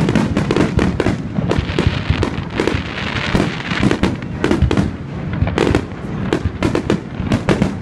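Fireworks display going off close by: a rapid, irregular string of sharp bangs from bursting aerial shells and launches, several a second, over a continuous crackle and hiss that thickens around the middle.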